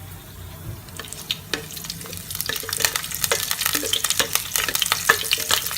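Tempering of curry leaves, fenugreek seeds and green chilies frying in hot olive oil while being stirred in the pan. The crackling is sparse at first and becomes a dense, steady spitting about halfway through.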